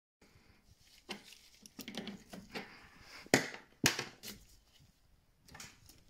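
Gloved hand handling the plastic cap of a MagnaClean Professional magnetic system filter: scattered knocks and rubbing, with two sharper clicks about half a second apart in the middle.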